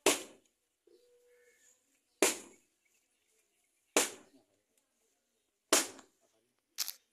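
Five sharp, loud knocks, most of them about two seconds apart, each dying away within half a second; a brief faint steady tone sounds about a second in.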